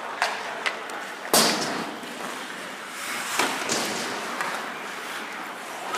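Ice hockey play on a rink. There are clacks of sticks and puck on the ice, skates scraping, and one loud slam against the boards about a second and a half in, which rings around the hall.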